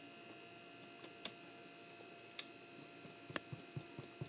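A few light taps and clicks of fingertips pressing a glued construction-paper strip onto a notebook cover, sparse at first and coming closer together near the end, over a faint steady hum.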